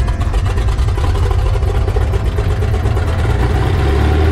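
Cessna 182S's six-cylinder Lycoming piston engine and propeller running steadily on the ground, heard from inside the cabin as a loud low drone that grows stronger near the end.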